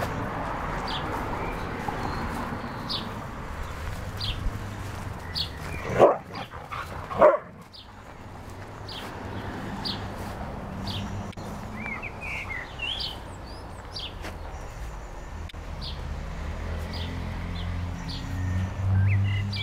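A dog barking twice, short and loud, about six and seven seconds in.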